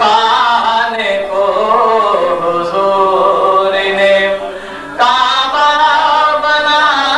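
A man's solo voice chanting devotional verse (a naat) into a microphone, with long, wavering held notes. About four and a half seconds in he pauses for breath, then comes back in on a strong held note.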